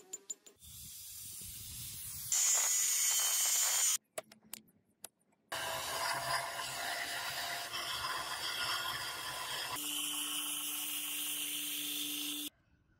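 A hiss for about three seconds, louder in its last second and a half. Then, after a short pause, a belt grinder grinds a steel blade for about seven seconds, with a steady motor hum showing in its last few seconds, and stops abruptly near the end.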